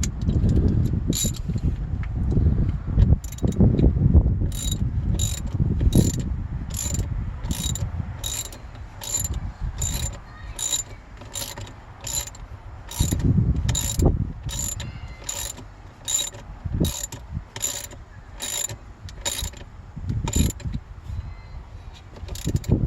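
Ratchet spanner clicking steadily, about two clicks a second, as it tightens the 10mm nut on a battery's positive terminal clamp. A low, uneven rumble sits underneath.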